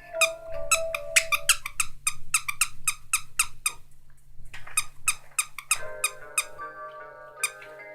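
A fast run of short squeaks, about five a second, for several seconds, breaking off briefly and resuming for a second. Under and around them a chiming mallet-toned tune plays, fading out early on and returning near the end.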